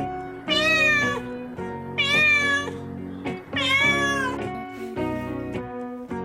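A cat meowing three times, long rising-and-falling meows, over background music.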